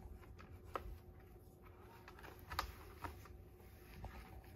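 Cats' claws and bodies scratching and rustling on a corrugated cardboard scratcher. It comes as faint, scattered scrapes and clicks, the sharpest about halfway through.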